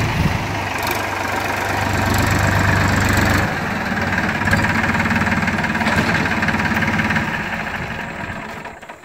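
Massey Ferguson tractor's diesel engine running steadily as it drives past. The deepest part of the engine note drops away about three and a half seconds in, and the sound fades out near the end.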